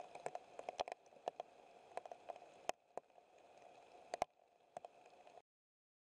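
Faint drops of rain ticking and tapping at irregular intervals on wet leaves, over a low hiss; the sound cuts off abruptly near the end.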